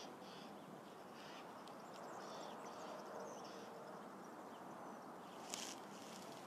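Quiet rural outdoor ambience with soft, high chirping from small wildlife repeating irregularly in the background, and a brief click about five and a half seconds in.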